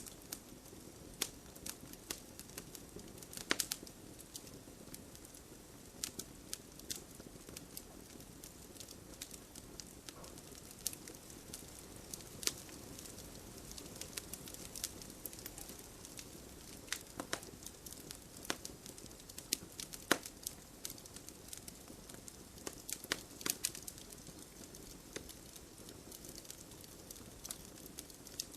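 Wood fire burning in a fireplace, crackling with irregular sharp pops and snaps over a steady low hiss.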